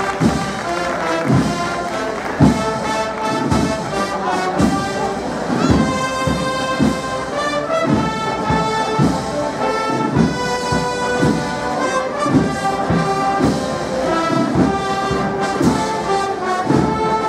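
A banda de música (wind band) playing a Holy Week processional march: brass and woodwinds carry a slow, sustained melody over regular bass drum beats.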